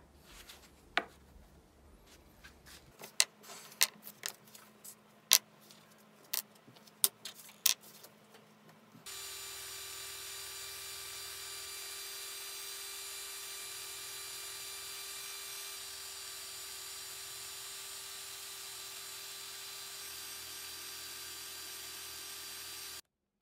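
Scattered sharp taps and clicks of a wooden dowel handle being worked on a workbench. About nine seconds in, a cordless drill starts running steadily, spinning an old drill bit against sandpaper to grind its tip to a point, then cuts off suddenly near the end.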